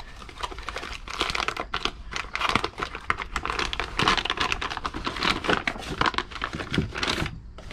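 Cardboard box flaps being opened and clear plastic parts bags crinkling and rustling in the hands, a busy run of small irregular clicks, scrapes and crackles that eases off near the end.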